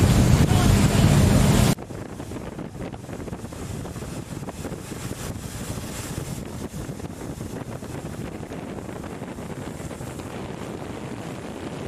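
Boat engine running with a steady low hum under wind buffeting the microphone. Under two seconds in it drops abruptly to a quieter rush of wind and water.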